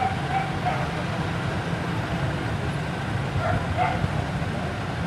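Steady low rumble of slow street traffic heard from a moving car, with a dog barking a few short times near the start and again about three and a half seconds in.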